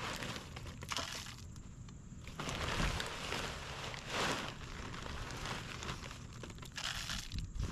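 Small marble chips poured from a plastic bag as backfill around an in-ground landscape box, the stones rattling and the bag crinkling. It comes in several pours, the longest from about two and a half to five seconds in.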